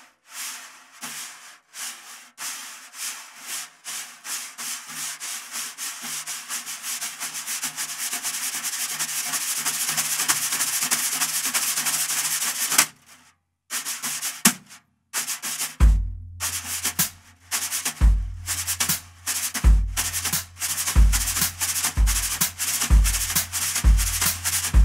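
Wire brushes playing double strokes on a snare drum: quick swept and tapped strokes in a steady rhythm, gradually getting louder. After a short break about 13 s in, the strokes continue as a groove with bass drum beats about once a second.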